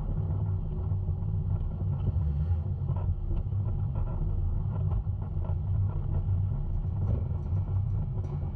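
2011 Jeep Wrangler Rubicon's 3.8-litre V6 running at low speed off-road, a steady low rumble, with scattered light ticks near the end.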